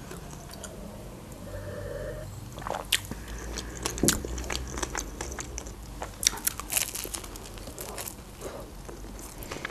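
Close-miked eating sounds: biting into and chewing a shawarma wrap, with irregular wet clicks and small crunches, quieter for the first couple of seconds.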